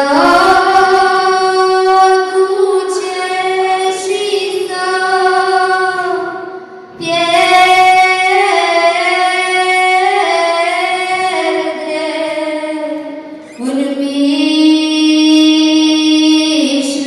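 A young female voice singing solo, a slow song in long held, gently bending notes, with short breaks for breath about seven and thirteen and a half seconds in.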